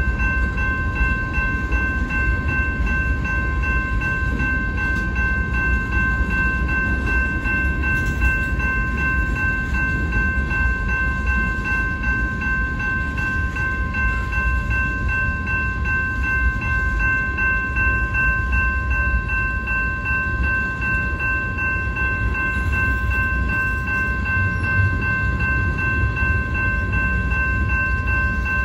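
Freight cars of a mixed train, boxcars and tank cars, rolling past: a steady low rumble of wheels on rail, with steady high ringing tones running over it.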